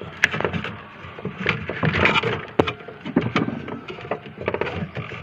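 Irregular plastic clicks, cracks and scraping as a refrigerator's thermostat unit is worked loose from its plastic locking clip by hand.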